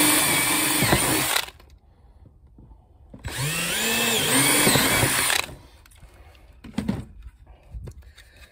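Cordless drill boring through a plastic solar-panel bracket in two runs of about two seconds each, the motor whine rising as it spins up and dropping as it slows. A few light knocks follow near the end.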